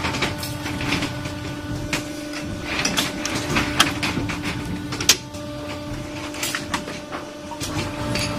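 Shoe-factory pressing machines running: a steady machine hum with irregular sharp clanks and clicks as the presses are worked.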